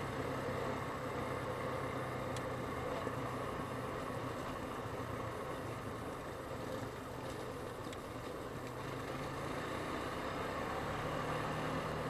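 ATV engine running steadily at a cruise while riding along a dirt trail, its note rising slightly about eleven seconds in.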